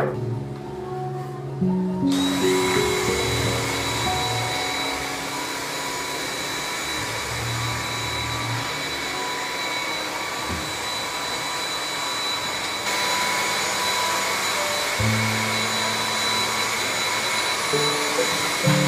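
Dyson cordless stick vacuum switched on about two seconds in, then running steadily: a high whine over rushing air. Background music plays underneath.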